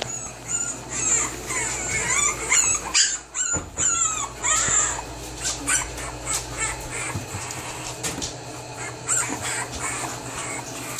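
A litter of very young boxer puppies squeaking and whimpering. Many short, high squeals overlap during the first half, then thin out to a few scattered squeaks.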